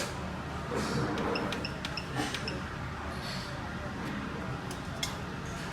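Steady low hum and hiss of a running fan, with light clicks of tools on the bench and a few short, faint high beeps in the first half.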